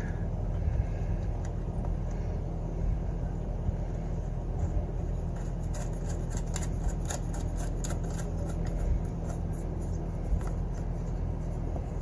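A steady low hum in the background. A few faint, light metallic clicks about six to nine seconds in, as a small nut is turned by hand onto the threaded barrel of a mower's ignition switch.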